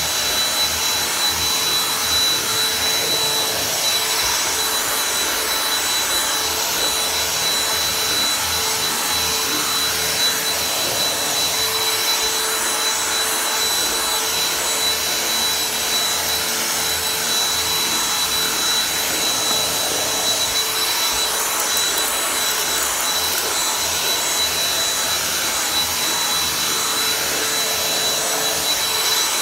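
G-Tech cordless handheld vacuum cleaner running steadily while vacuuming stair carpet, with a steady high-pitched whine over its airflow noise.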